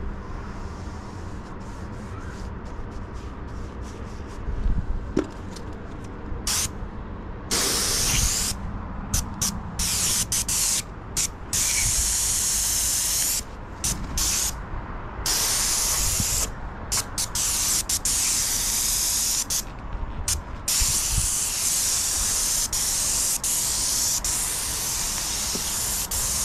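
Airless paint spray gun hissing in repeated bursts, starting and stopping abruptly as the trigger is pulled and released, beginning about six seconds in. A steady low rumble runs underneath.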